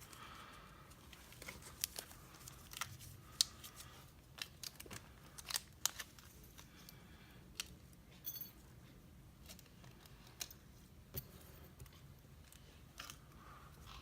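Faint, scattered light clicks and small rustles as thin metal lock shims are handled, with a new pack of shims being opened and one shim taken out.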